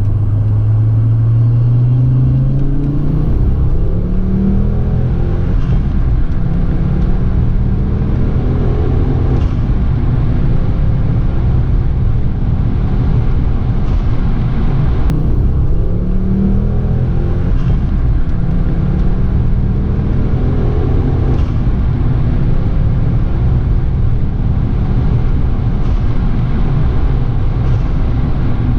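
Tuned Ford Focus ST Mk2.5's turbocharged 2.5-litre five-cylinder engine accelerating, its note rising in pitch over the first few seconds, then running on under load with a steady rumble of road noise. It rises again in pitch around the middle.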